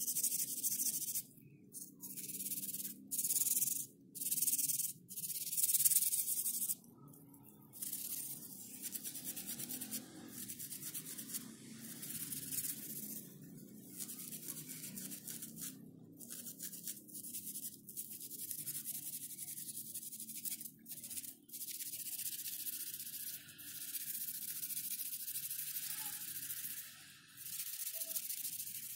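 Bristles of an old paint brush being scrubbed and rubbed by hand, a scratchy rustling that comes in runs with short pauses between strokes.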